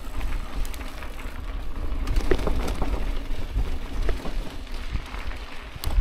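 Bicycle ridden over a rough dirt track: tyre noise with scattered clicks and rattles, under a gusty rumble of wind on the microphone.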